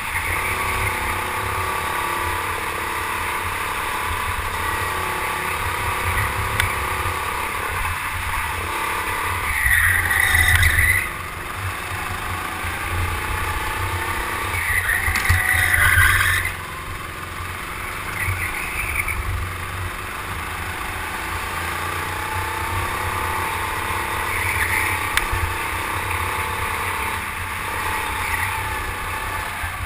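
Go-kart running at racing speed under the onboard camera, its engine note rising and falling through the corners, with two louder stretches about ten and fifteen seconds in.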